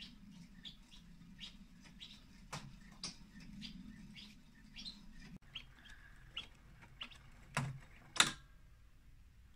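Mechanical singing-bird automaton's whistle chirping in quick short notes, two or three a second, over a low whir from its clockwork movement; the whir stops about halfway through. Near the end come two sharp knocks, the second the loudest, as the pin on the base is pressed.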